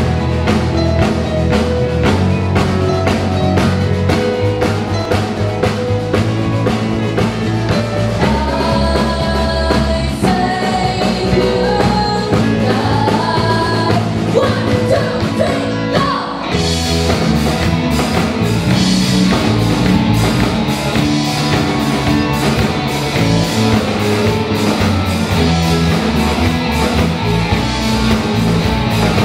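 A live rock band plays: drum kit, electric guitars, bass and keyboard behind a female lead singer. About sixteen seconds in the band breaks off for a moment, then comes back in fuller with more cymbal.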